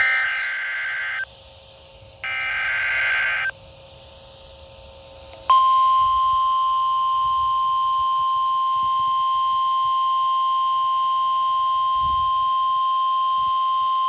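Emergency Alert System signal on NOAA Weather Radio: two buzzy, warbling bursts of the SAME digital alert header, each about a second long with a pause between them. After a short stretch of faint hiss, the steady 1050 Hz warning alarm tone starts about five seconds in and holds. The tone signals that a warning message, here a tornado warning, is about to be read.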